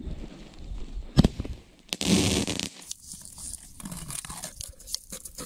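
A single sharp bang about a second in. Then the hiss and scattered crackle of a firework fuse burning down into a mortar tube.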